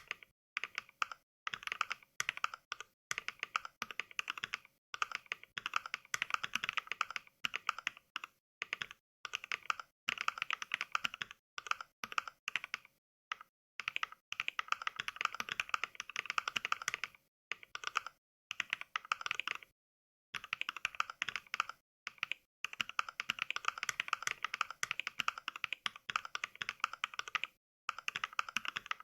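Simulated mechanical-keyboard typing from the Mechvibes NK Cream switch sound pack: fast keystroke clicks in runs lasting a few seconds, broken by short silent pauses.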